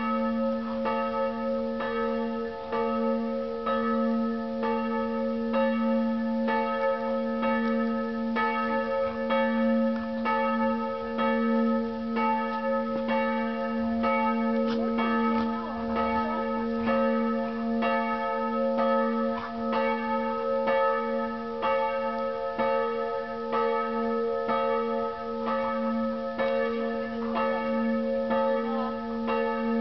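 Church bells ringing, struck over and over at an even pace, a deep tone and several higher ones ringing on between strokes.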